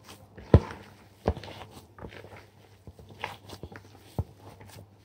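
A hand mashing and kneading boiled potato filling with chopped onion and spices in a bowl: soft squishing with a few irregular dull thumps, the loudest about half a second in.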